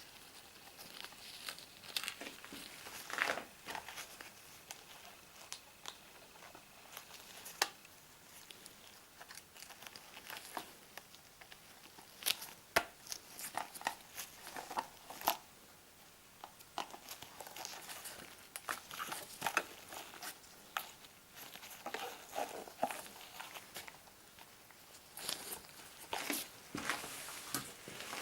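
Hands working at a stubborn pack to get it open: irregular clicks, scrapes and rustles of the packaging being pressed and pried.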